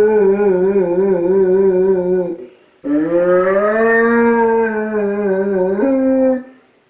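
Great Dane howling, left home alone: two long howls, the first wavering in pitch and ending about two and a half seconds in, the second swelling slowly then stepping up in pitch just before it breaks off.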